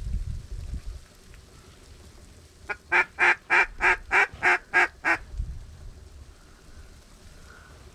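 A duck call blown in a quick series of about eight quacks, evenly spaced at about three a second and cut off sharply, to lure ducks in. Low wind rumble on the microphone sits under it.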